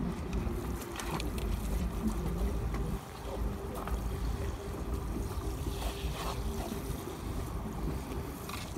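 Water pouring from a watering can's rose onto soil and plants, under a steady low rumble of wind on the microphone.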